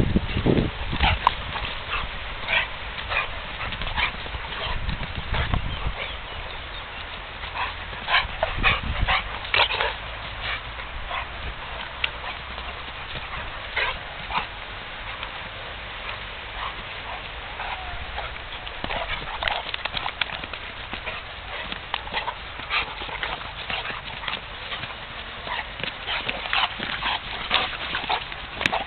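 Two dogs play-fighting: irregular scuffling and many short, sharp sounds from their snapping and tussling, mixed with dog noises throughout.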